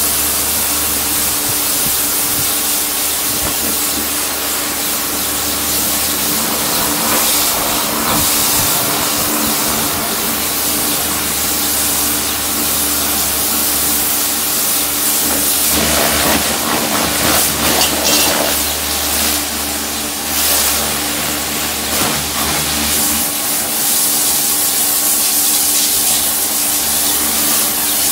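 Kärcher electric pressure washer running: the loud, steady hiss of the water jet blasting a garden chair and the patio slabs, over the steady hum of the machine's motor and pump. The spray sound changes partway through as the jet moves across different surfaces.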